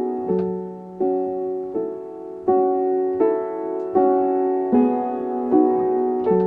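Electric piano chord progression played through the RUINER signal-degrading effect, a new chord struck roughly every three-quarters of a second, each dying away before the next.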